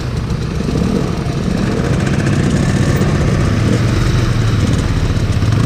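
Dirt bike engines running and revving up and down while the motorcycles ride through a flooded road, with water splashing off the wheels.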